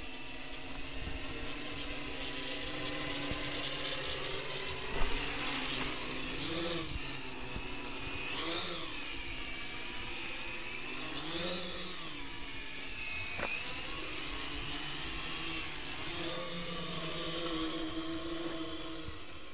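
Home-built H-frame quadcopter in flight: four RCTimer 2830 1000Kv brushless motors spinning 10x4.5 propellers in a steady whine, the pitch swooping up and back down several times as the throttle changes. A brief bump about five seconds in.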